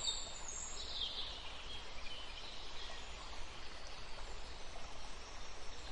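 Forest ambience track: a steady soft hiss with a few faint bird chirps, mostly in the first second.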